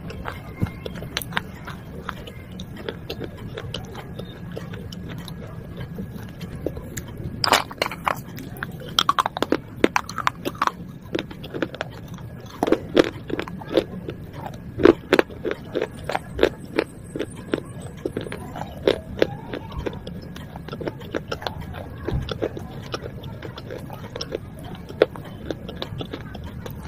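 Close-miked chewing of broken baked-clay pot shards: many sharp crunches and cracks, thickest from a quarter to about halfway through, with a steady low hum underneath.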